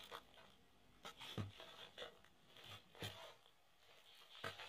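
Faint handling noise: soft rustling of a shrink-wrapped cardboard trading-card box turned in gloved hands, with a few light taps, the clearest about a second and a half in.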